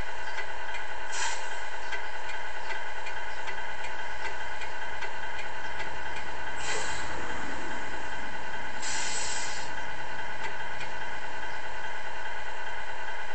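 A 1/14 Tamiya Scania R620 RC truck's sound unit playing a simulated V8 engine idling steadily through its small speaker. Three short air-brake hisses break in: about a second in, about halfway through, and a longer one about two-thirds through.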